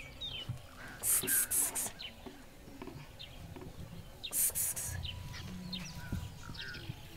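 Scattered short bird chirps in rural outdoor ambience, with brief hissing rustles about a second in and again about four seconds in.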